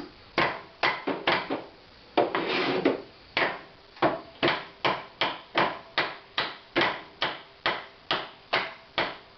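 Repeated sharp knocks on the stiff part of a cast-iron Corona hand corn mill, about two to three a second and getting a little quicker, with a brief scraping rasp about two seconds in.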